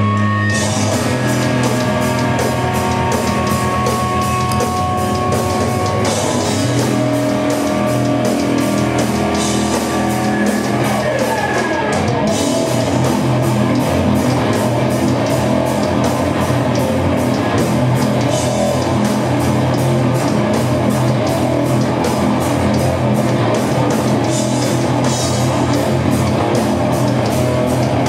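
Live rock band playing loud: distorted electric guitars and bass over a steady drum-kit beat. The drums and full band come in right at the start, after a held guitar tone.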